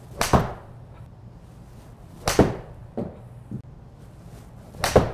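Three golf shots with a TaylorMade P790 iron on a steel shaft, each a sharp strike of the clubface on the ball off a turf hitting mat, about two and a half seconds apart. A couple of smaller knocks follow the second shot.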